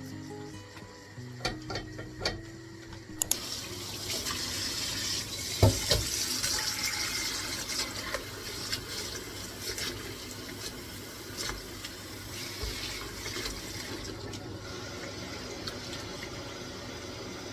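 Water tap turned on about three seconds in, water running steadily into a sink, with a few clicks before it and a sharp knock shortly after it starts.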